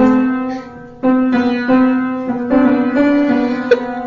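Upright piano keys pressed by a cat's paws: a few notes at a time struck at uneven intervals, each ringing and fading, with a sharp knock near the end.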